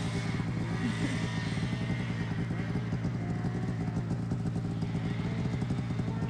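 Snowmobile engine idling steadily with a rapid, even pulse.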